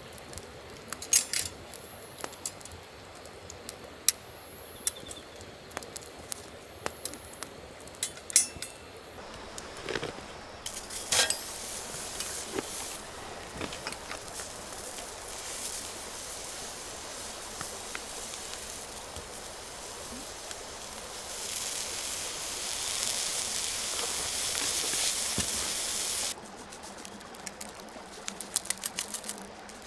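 A campfire crackling with sharp pops, then a sausage sizzling on an iron griddle plate over the coals, louder for several seconds past the middle. Near the end come quick light ticks as seasoning is shaken onto a raw steak.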